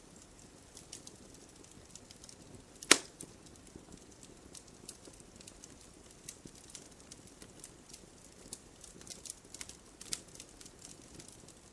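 Wood campfire crackling with irregular sharp pops over a low hiss, and one much louder pop about three seconds in.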